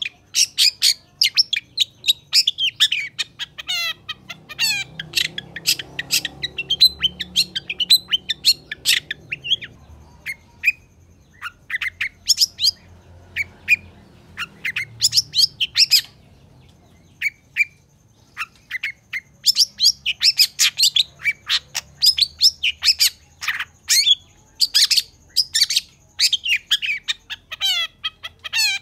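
Long-tailed shrike (cendet) singing a fast, continuous chatter of short, sharp notes. The notes thin out in the middle and come thick again for the last third.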